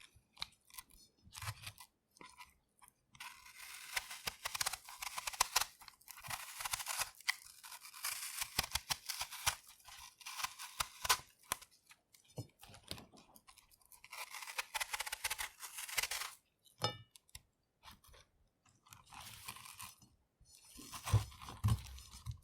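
A knife peeling an apple: runs of fine, crisp scraping and crackling as the blade shaves off the skin, broken by short pauses, with a few sharper clicks and a duller bump near the end.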